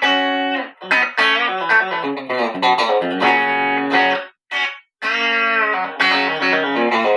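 Electric guitar (a WestCreek TT-20 Telecaster-style solid body on its bridge pickup, full volume and tone) played through a small Vox MV50 head and 1x10 cab with no effects. It plays picked single notes and chords, stops briefly about four and a half seconds in, and then rings out on strummed chords.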